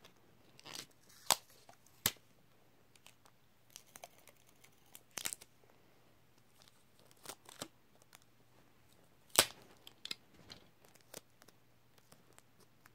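Clear adhesive tape being pulled, torn and crinkled by hand: scattered short rips and crackles with quiet gaps between them, a few of them sharp and loud.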